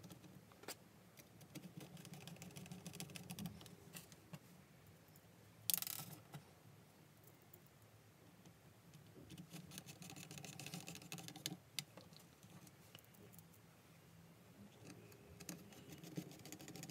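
Faint clicks and rustles of hands handling a 3D-printed plastic case and circuit board on a wooden desk, with one louder clack about six seconds in.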